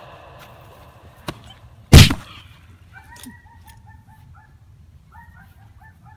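A single loud thump about two seconds in, followed by a small dog barking in quick runs of short, high yaps, fainter than the thump.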